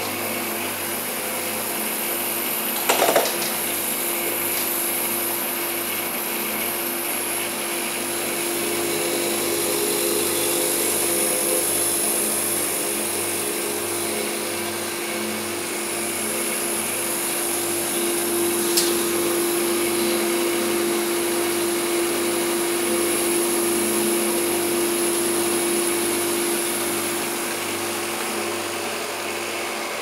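Steady mechanical hum and whir of running machinery, with a low throb pulsing regularly underneath and a high hiss; a short knock about three seconds in and a faint click later.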